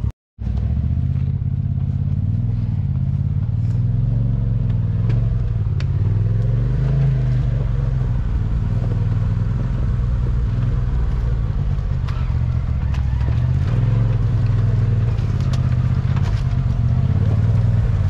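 Polaris Pro XP side-by-side's engine running on the trail, its pitch rising and falling as the throttle is worked. The sound drops out for a split second just after the start.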